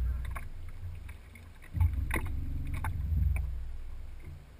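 Boat motor running steadily at low revs, dipping briefly about a second in and picking up again. Three sharp knocks of gear against the boat come near the middle.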